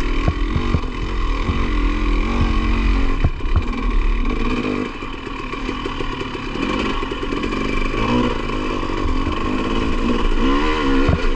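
KTM 300 XC-W TPI's single-cylinder two-stroke engine running under a rider, its revs rising and falling with the throttle and easing off about five seconds in, with scattered knocks and clatter from the bike.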